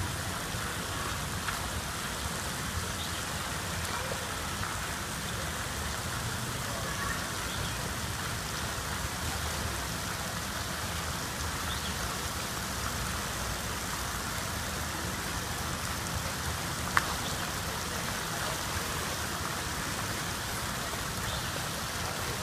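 Steady, even splashing and rushing of water in an outdoor swimming pool, with one sharp click about three-quarters of the way through.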